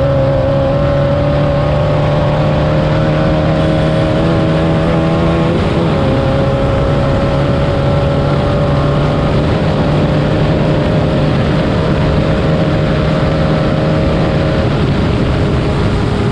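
Class 9 desert racing buggy's air-cooled VW engine running hard at steady high revs, over a steady rush of noise; its pitch dips briefly and recovers about six seconds in.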